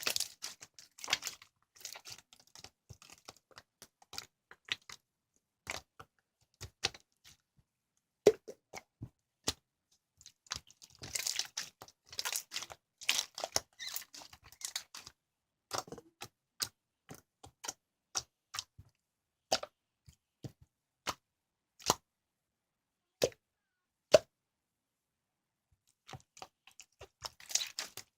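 Slime with lavender petals in it being squished and poked by hand: sticky pops, clicks and crackles come in irregular clusters with short quiet gaps between them.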